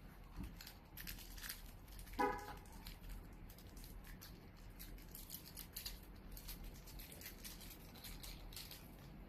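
Faint small clicks and scrapes of parts being handled while a pedal bolt is fitted to a water bike's pedal crank, with one short, louder squeak about two seconds in.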